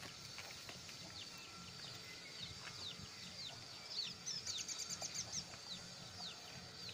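Birds chirping: repeated short, high chirps that fall in pitch, with a quick trill of about seven notes around the middle.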